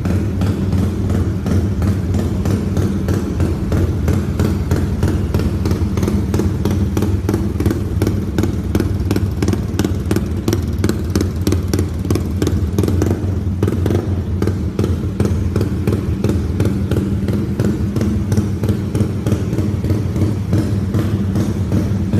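Modified Yamaha Y15ZR (Exciter 150 / MX King 150) single-cylinder four-stroke motorcycle engine running steadily with a loud, rapid exhaust pulse, held without revving.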